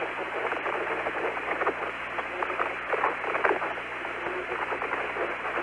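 Open Apollo air-to-ground radio link between transmissions: steady narrow-band hiss with faint crackling, and a sharper click about half a second in.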